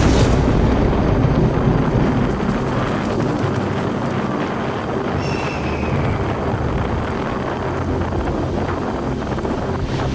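Strong wind buffeting the microphone as a steady, heavy low rumble, with a louder gust right at the start.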